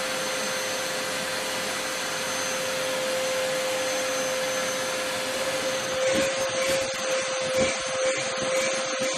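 Vacuum cleaner running with a steady whine while its hose nozzle sucks at a long-haired cat's fur. About six seconds in, the sound turns uneven and choppy.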